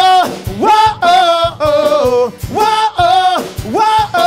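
Live rock band with male vocals: a sung phrase that swoops up into a held note and repeats about once a second, over guitars, bass and drum hits.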